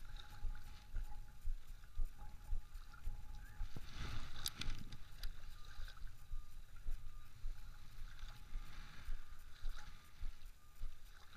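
Wind rumbling unevenly on the microphone over lapping shoreline water, with a brief cluster of sharp clicks from fishing tackle being handled about four and a half seconds in.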